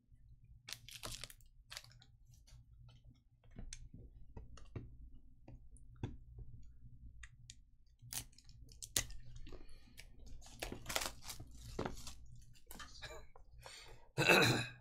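Trading cards and foil pack wrappers being handled on a table: scattered light clicks and crinkling rustles, sparse at first and busier in the second half, with a louder burst of crinkling near the end.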